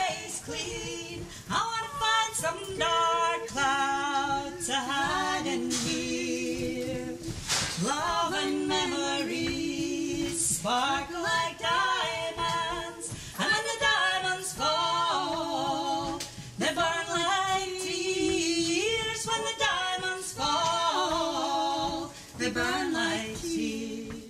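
Women's voices singing a folk song unaccompanied, two parts in harmony, with held and sliding notes; the singing ends at the very end.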